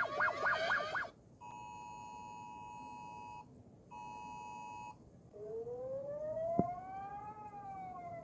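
A run of emergency alert alarm tones: a fast warbling alarm for about a second, then the Emergency Alert System two-tone attention signal in two steady bursts, the second shorter. Then a siren tone rises slowly and falls again, with a sharp click partway through.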